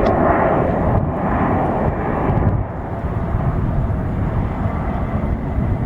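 Jet airliner engine noise: a steady, dense rumble that eases a little about halfway through.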